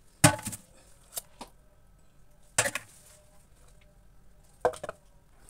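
A few sharp knocks and clatters as a small food chopper's metal bowl, lid and blade are handled, the loudest about a quarter second in and another at about two and a half seconds.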